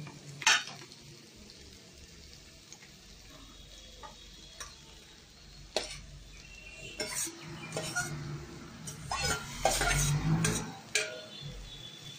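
Boiled pumpkin leaves being scraped out of a steel pot with a steel spoon into a wok of hot oil and fried potatoes. The spoon clinks on the metal, once sharply about half a second in, and the wok sizzles under a busy stretch of scraping and clanking in the second half.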